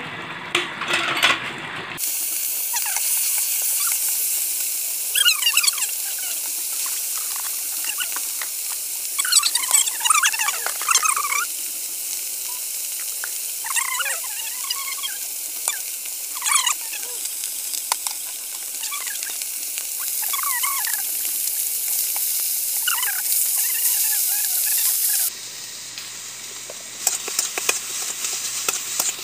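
Small fish frying in hot oil in an iron kadai, a steady sizzle with scattered short high chirps over it. Near the end the sizzle cuts off suddenly, giving way to a low hum and some clicks.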